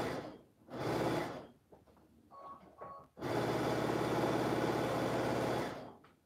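Electric sewing machine stitching: two short bursts, then a steady run of about two and a half seconds with a fast, even needle rhythm. These are the first stitches of a seam, with a little backstitching to lock it.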